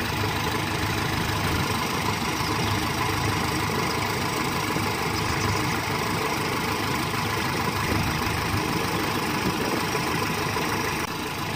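Engine idling steadily with a knocking beat, cutting off suddenly about a second before the end.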